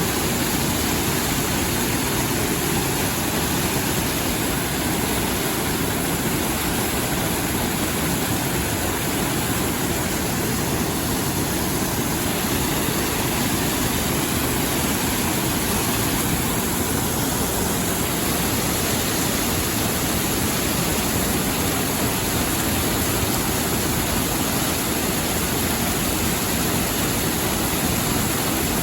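Mountain stream water rushing, a steady even rush with no breaks.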